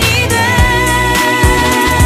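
Background music with a steady beat under a long held melody line.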